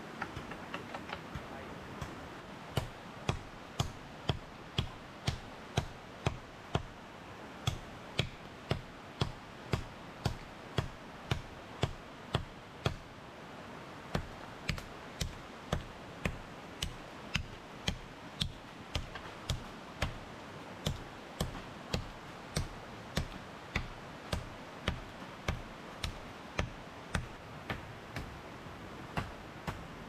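A blade chopping into a small tree trunk: sharp, even strokes at about two a second, starting about two seconds in, over a steady background hiss.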